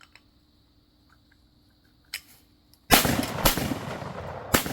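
Three shotgun shots in quick succession from a Browning A5 inertia-driven semi-automatic shotgun, fired about two seconds in and spread over less than two seconds, each followed by a long echo.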